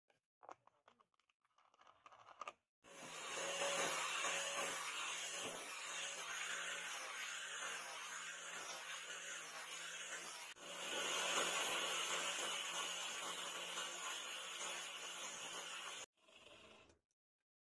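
Electric angle grinder with a sanding disc running, sanding a wooden sword handle. It starts about three seconds in after a few faint handling clicks, dips briefly midway, and cuts off suddenly near the end.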